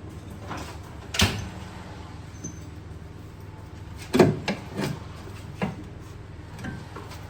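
Irregular knocks and clunks from work on a car's suspension. A sharp knock comes about a second in, then a loud cluster of three clunks around four to five seconds and two softer knocks later, over a steady low hum.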